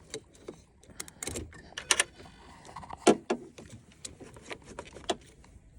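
Battery cable terminal being fitted back onto the battery post: a scattered series of sharp metal clicks and knocks, the loudest about three seconds in.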